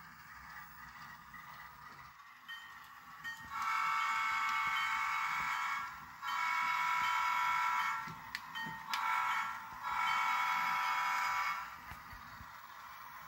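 Sound-equipped model diesel locomotive sounding its horn through its small onboard speaker: two long blasts, a short one and a final long one, the long-long-short-long signal for a grade crossing.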